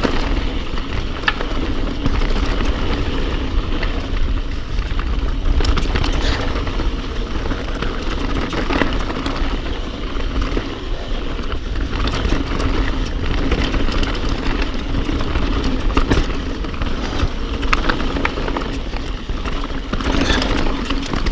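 Mountain bike descending a rough dirt singletrack at speed: a steady rush of wind buffeting the bike-mounted camera's microphone, under the tyres rolling over dirt and stones, with frequent sharp clicks and knocks as the bike rattles over bumps.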